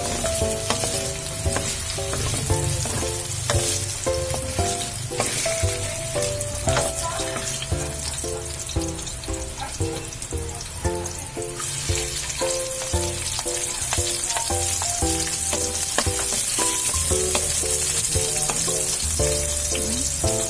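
Milkfish (bangus) frying in hot oil, a steady sizzle that gets stronger about twelve seconds in, heard together with background music with a regular beat.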